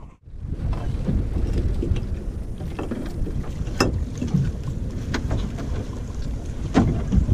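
Wind buffeting the microphone over the low wash of sea water against a small open fishing boat, with a few sharp clicks and knocks as a gillnet is hauled in by hand over the gunwale.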